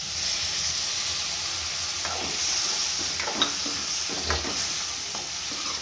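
Onion-tomato masala sizzling in hot oil in a metal kadhai as milk is poured in, the sizzle swelling right at the start. From about two seconds in, a spatula scrapes and stirs against the pan a few times.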